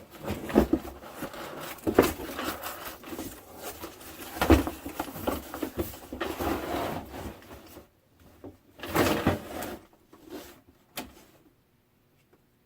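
Cardboard box and packing material being handled and pulled apart during unboxing: rustling and scraping with several sharp knocks, dying down to a single click near the end.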